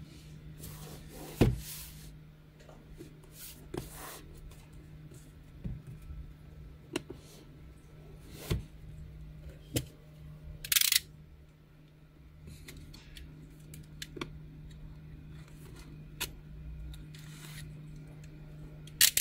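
Cardboard box being handled: scattered light taps and knocks, with one short sliding scrape about eleven seconds in, over a faint steady hum.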